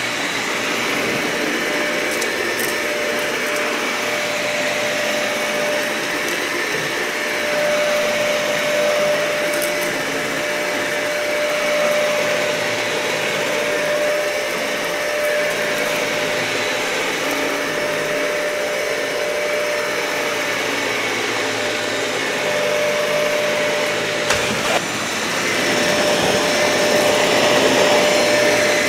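Dyson vacuum cleaner running over a matted carpet: a steady motor whine under the rush of air, the sound swelling and falling gently with the back-and-forth strokes. A click about 24 seconds in, after which it runs louder and fuller.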